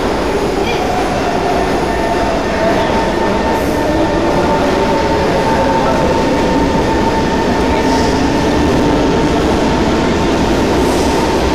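North-South Line MRT train pulling out of the station and gathering speed. Its electric drive whines, the tones gliding in pitch over a steady rumble of running noise.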